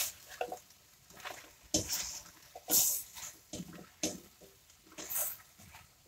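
A spatula stirring chopped raw potato, carrot and celery in a stainless steel pan, the pieces sliding and scraping against the metal in irregular strokes, one or two a second.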